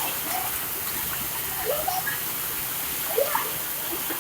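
Heavy rain from a rainstorm pouring down in a steady hiss, with a few short, distant voice-like calls over it.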